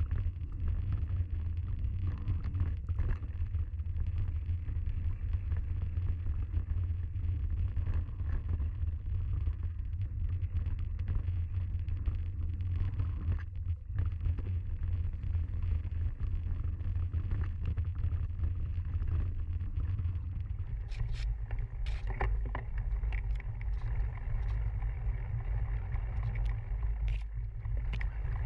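Mountain bike riding down a leaf-covered dirt trail, heard as a steady low wind rumble on the microphone with tyre noise. About two-thirds of the way through the sound changes, and sharp rattles and clicks from the bike jolting over bumps come in.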